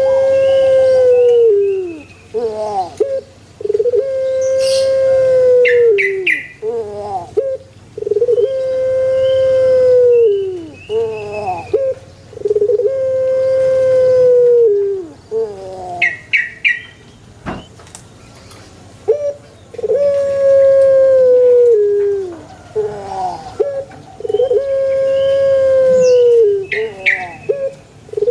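Puter pelung dove cooing: a run of long, drawn-out coos, each held on one note and dropping away at the end, repeated about every four seconds with short notes in between. Brief high chirps sound three times among the coos.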